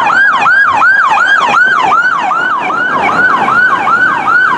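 Electronic police siren in a fast yelp, each wail jumping up and sliding down in pitch about four times a second.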